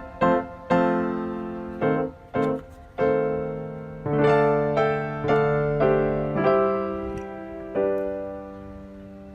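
Piano music: notes and chords struck one after another and left to ring, the last one fading out near the end.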